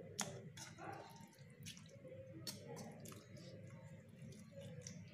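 A metal spoon stirring wet chopped tomato, onion and green chilli chutney in a bowl: faint wet squishing with light clicks of the spoon every second or so.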